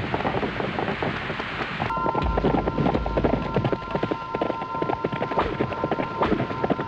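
Kung fu fight sound effects: a dense rush of noise, then, after an abrupt change about two seconds in, a quick run of sharp hits over two steady high tones.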